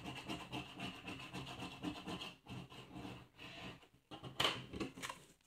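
A coin scraping rapidly back and forth across a scratch-off card on a table, rubbing off the scratch coating; the scraping thins out to separate strokes about halfway through, with a few louder scuffs near the end.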